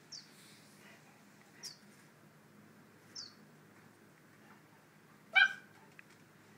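A bird's short, high chirp repeating about every second and a half, and about five seconds in a single loud, brief yip from a puppy.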